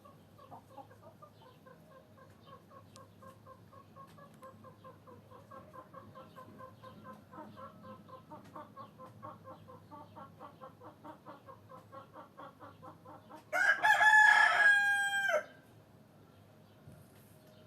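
Chickens clucking in a long, quick, even run of clucks, then about fourteen seconds in a rooster crows once, loud and lasting nearly two seconds, its pitch dropping at the end.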